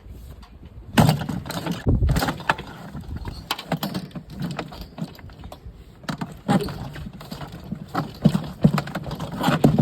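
Repeated hammer blows smashing a mini fridge, sharp banging and cracking hits. A heavy hit about a second in and a deep thump a second later, then a quick run of blows near the end.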